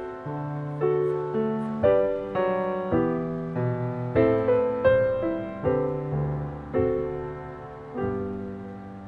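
Soft background piano music: single notes struck about every half second, each dying away before the next.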